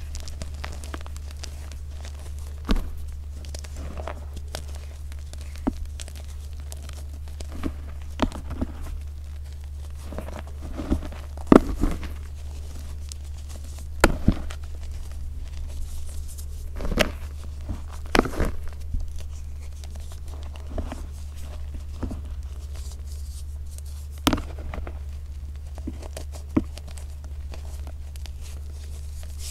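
Hands squeezing and kneading a bowl of crushed, dyed gym chalk, now mostly powder with small crumbling lumps, giving irregular soft crunches and crackles. A steady low hum runs underneath.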